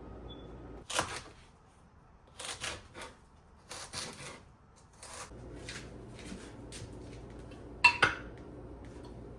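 A string of short clicks and knocks, about a dozen spread unevenly, with the loudest clack about eight seconds in, over a faint steady low hum.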